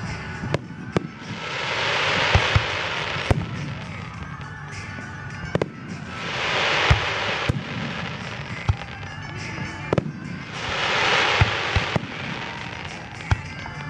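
Fireworks display: scattered sharp bangs of bursting shells, with three swells of dense crackling hiss, each lasting about two seconds.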